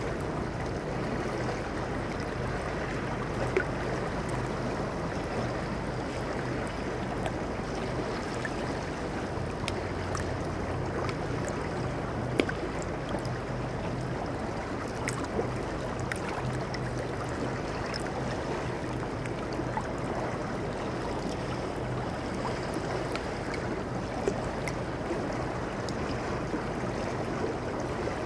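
Shallow river water flowing and rippling over rocks: a steady rushing, broken now and then by a brief sharper plop.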